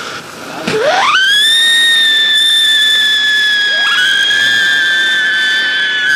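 A siren firecracker shrieking: a loud whistle sweeps up in pitch about half a second in, then holds a steady high note. A second whistle rises to join it a little past halfway.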